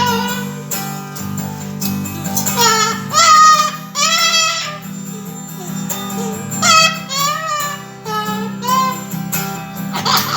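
A cockatoo vocalizing along to a strummed acoustic guitar, in a series of high, sliding, song-like calls over the steady chords.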